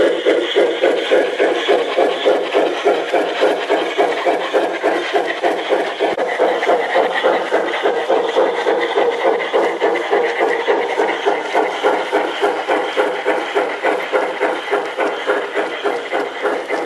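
Garden-scale model trains running on outdoor track, with a steady rhythmic beat about three times a second.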